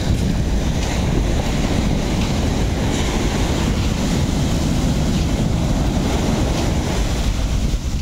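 Sea surf breaking and washing up the shore, mixed with strong wind buffeting the microphone in a steady rumble.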